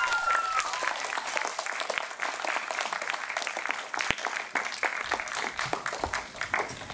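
Theatre audience applauding with dense, steady clapping that thins out near the end. A high whistle from the crowd fades out just after the start.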